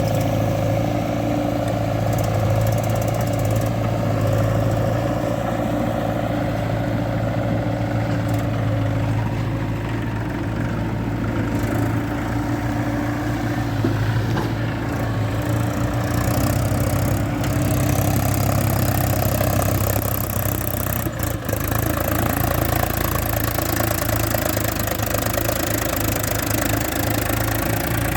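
Diesel engine of heavy machinery running steadily, its note shifting a little partway through.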